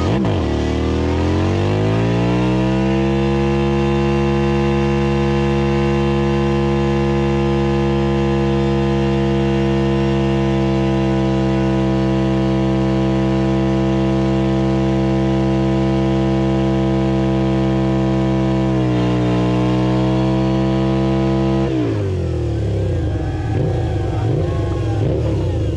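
Motorcycle engine under way: the revs climb for a few seconds, then hold steady at a constant cruising speed, with a brief dip and recovery near the 19-second mark. About 22 seconds in the revs drop away and the sound turns rougher as the bike slows.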